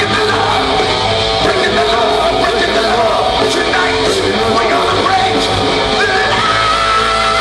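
Live rock band playing with lead vocals over electric guitar. About six seconds in, a long high note with vibrato begins and is held.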